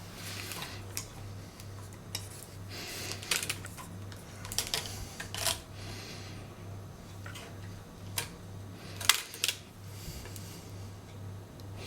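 Handling noise: scattered clicks and knocks of hard objects being picked up and set down, over a low hum that pulses evenly.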